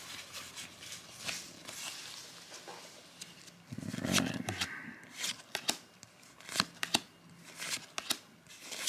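Pokémon trading cards slid and flicked through gloved hands one at a time, making light rustling and sharp card snaps, which come thicker in the second half. There is a brief low sound about four seconds in.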